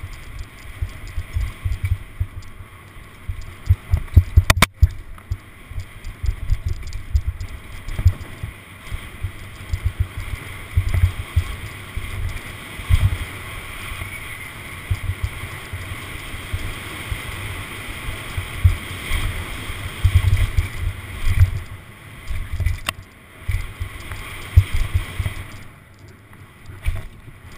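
Downhill mountain bike descending a rough dirt trail, heard through a bike-mounted camera: irregular knocks and rattles from the bumps over a steady rush of wind and tyre noise, with a sharp click about four and a half seconds in.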